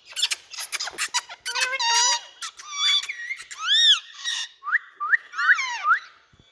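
Indian ringneck parrot calling: a quick run of clicks, then squawks and squeaky notes, ending in a string of short rising calls.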